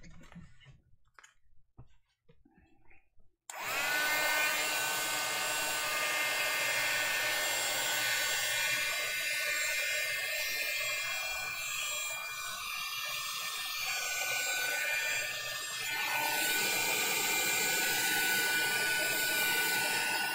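A small handheld craft dryer switches on about three and a half seconds in and runs steadily, a rush of air with a motor whine, drying wet varnish on a sheet of painted paper. Before it starts there are faint rustles of the paper being handled.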